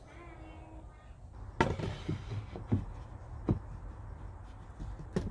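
Several sharp knocks and clunks of hard objects, the loudest about a second and a half in, with another near the end.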